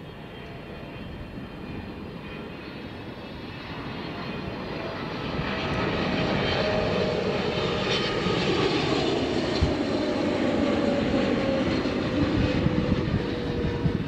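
Jet engines of a twin-engine Boeing 777 freighter on landing approach, a rumble growing steadily louder as it nears, with a whine that slowly falls in pitch as it passes.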